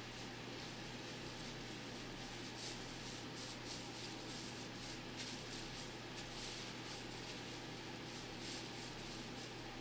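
Faint, irregular rustling and scratching of hands handling the wig materials, over a steady low electrical hum.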